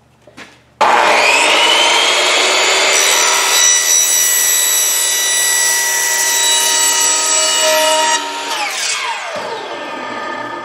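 Hitachi C10FCH2 10-inch compound miter saw switched on about a second in, its motor whining up to speed and running loud and steady as the blade is brought down through a 3-inch PVC sewer pipe. Near the end the trigger is let go and the motor winds down with a falling whine.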